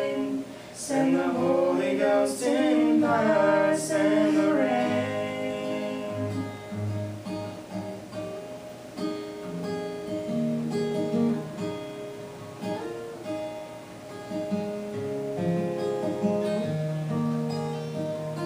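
Final sung notes of a gospel duet held with vibrato over acoustic guitar accompaniment. The voices stop about five seconds in, and the guitar plays the closing bars alone.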